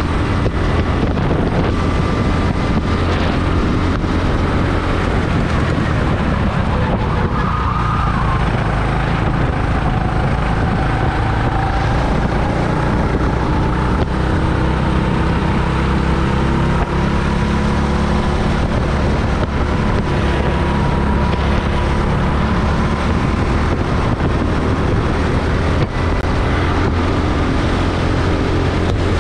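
Rental go-kart running on track, heard from an onboard camera: a steady engine drone over constant rushing noise, its pitch drifting slowly up and down.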